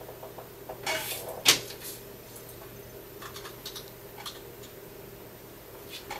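A few scattered clicks and knocks, from handling and tapping a touchscreen phone, over a steady low hum. A short cluster comes about a second in, and a single sharp click just after it is the loudest; fainter ticks follow later.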